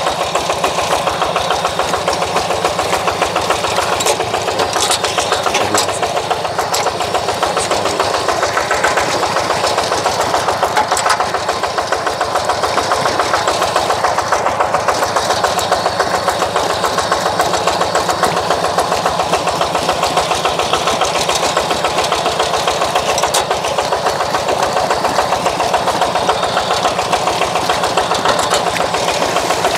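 Two-wheel hand tractor's engine running steadily under load, in an even, rapid pulse, as it plows through flooded paddy mud.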